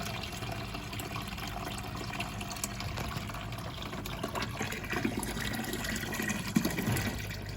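Logik L712WM20 front-loading washing machine draining its wash water: a steady rush and trickle of water being pumped out of the drum.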